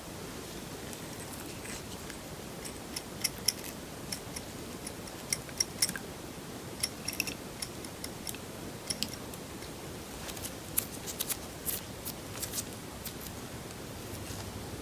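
Slime being worked by hand with paper clay, giving irregular sharp sticky clicks and pops over a steady hiss.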